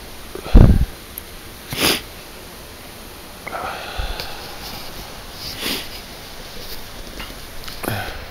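A loud bump on the camera microphone about half a second in, then several short sniffs, with a brief voiced sound from the man near the middle.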